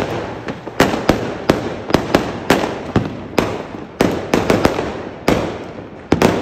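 Fireworks going off in quick succession: sharp bangs at uneven spacing, about two or three a second, with continuous crackling between them.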